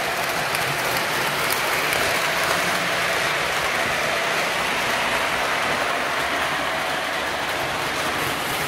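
O scale model trains running on the layout: a steady rolling rattle of metal wheels on track, with a faint steady whine underneath.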